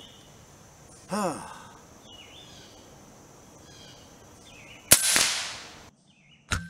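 A shot from an AirForce Texan SS .457 big-bore air rifle with a TX2 valve, firing a light 122-grain bullet: one sharp crack about five seconds in with a short fading tail, and a second crack near the end.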